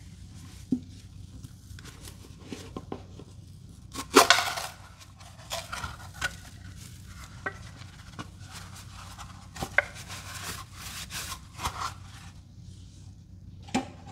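Sponges loaded with cleaning paste and Comet powder being squeezed and crushed by hand, giving irregular wet crunches and crackles. The loudest crunch comes about four seconds in.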